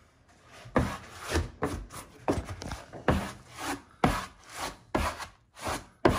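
A hand-held cloth rubbing and wiping back and forth across vinyl mural wallpaper hung on a ceiling, in quick strokes of about two a second.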